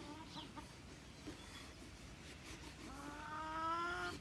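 Domestic hens calling quietly, then one long drawn-out hen call, rising slightly in pitch, that starts about three seconds in.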